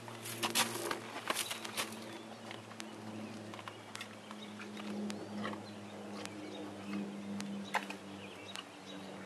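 A horse stepping up on gravel and nosing into a plastic bucket: scattered crunches and soft knocks, thickest in the first two seconds, over a steady low hum.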